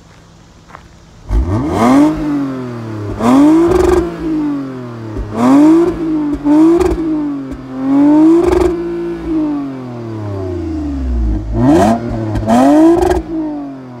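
2020 Toyota Avalon TRD's 3.5-litre V6 revved hard at a standstill through its cat-back exhaust, in about seven blips that climb and fall back, settling briefly toward idle before the last two. The exhaust note is throaty.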